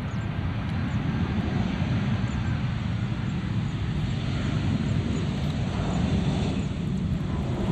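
Jet engines of an Airbus A320-family airliner on its landing roll, a loud rumble heaviest in the low end that swells over the first second and then holds steady.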